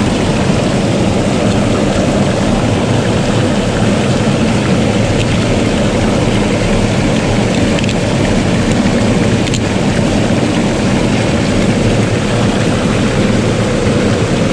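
Steady rush of surf and wind buffeting the microphone, with a few faint knocks of a machete blade prying rock oysters off a concrete pillar.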